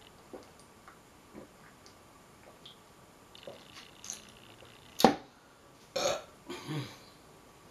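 A person drinking water with a few soft swallows, then a sharp knock about five seconds in, followed by a loud burp a second later.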